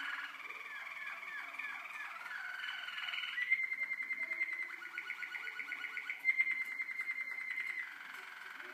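Young Waterslager (Malinois) canaries singing, a continuous song of rolls and trills. About a second in comes a run of short, quickly repeated gliding notes. From about three and a half seconds in the song turns to fast, even trills that switch between a higher and a lower pitch.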